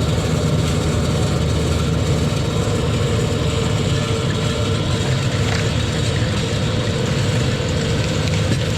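LS tractor's diesel engine running steadily at constant speed while it drives a PTO-powered Fransgard winch pulling on a fallen tree.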